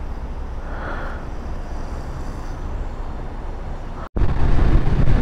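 Motorcycle running: a steady low rumble, then an abrupt cut about four seconds in to louder engine and wind noise.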